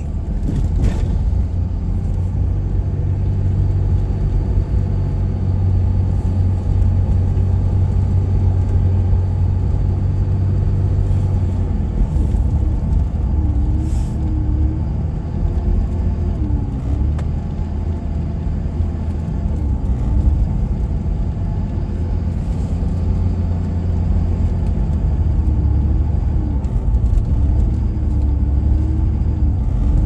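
Engine and road noise of a car driving, heard from inside the cabin: a steady low drone that changes slightly about twelve seconds in.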